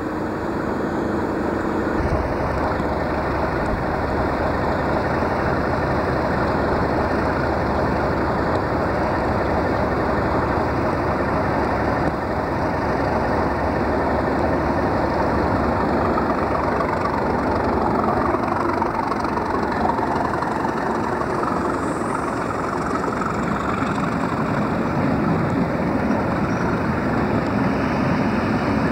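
Class 37 diesel-electric locomotive's English Electric V12 engine running steadily as it hauls a train of coaches into the platform, the coaches rolling past.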